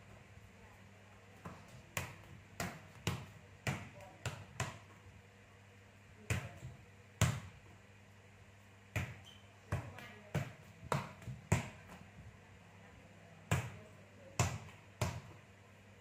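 A ball bouncing on a hard tiled floor in irregular runs, about two bounces a second, with pauses between the runs.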